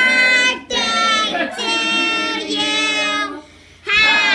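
High voices singing in long held notes, phrase after phrase, with a brief pause before the last phrase starts near the end.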